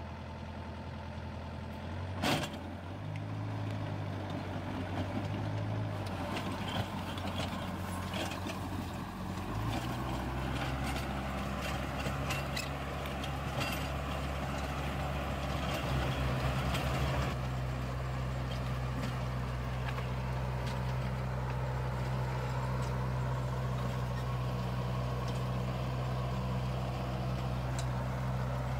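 Tractor diesel engine running steadily under load while pulling a ridge-forming plastic-mulch laying machine through the soil, with some clatter from the implement. A single sharp knock about two seconds in, and the engine hum steps higher about ten seconds in.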